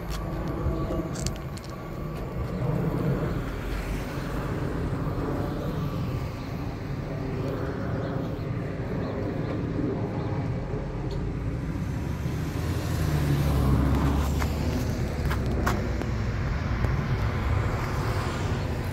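Road traffic: cars driving over the level crossing once the barriers lift, a steady low rumble with one car passing louder about two thirds of the way through.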